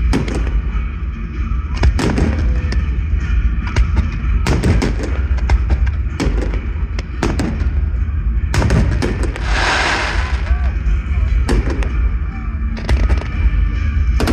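Fireworks display: repeated sharp bangs of shells bursting overhead at irregular intervals, with a dense hissing burst about nine seconds in that lasts a second or two.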